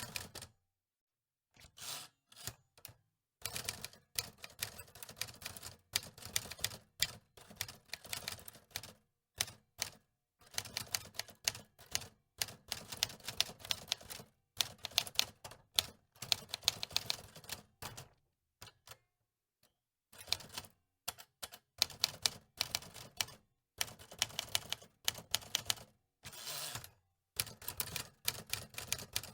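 Antique typewriter being typed on: keys clacking in quick irregular runs, broken by short pauses, including one about a second in and a longer one past the middle.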